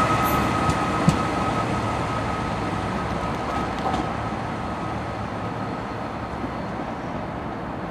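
Northern Ireland Railways diesel multiple unit running away down the line, its noise fading steadily as it recedes. A thin steady whine runs through it, and there is a single click about a second in.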